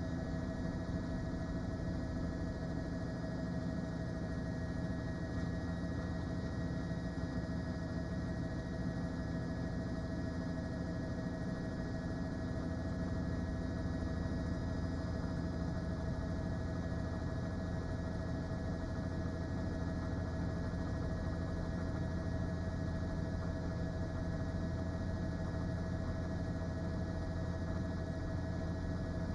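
Steady drone of a news helicopter's engine and rotor heard over an open cabin microphone, with several constant tones over a low rumble.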